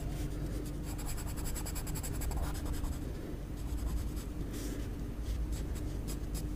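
Graphite pencil scratching on drawing paper in quick, short shading strokes, thickest about a second in.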